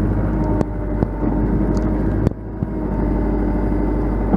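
Engine of an earth-moving machine running steadily under load as it pulls a large black walnut stump out of the ground, with a few sharp knocks, the loudest about two seconds in.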